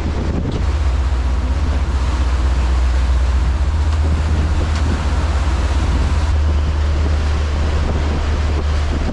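Wind buffeting the microphone aboard a fishing boat under way, over a steady low rumble from the boat and the rush of the sea.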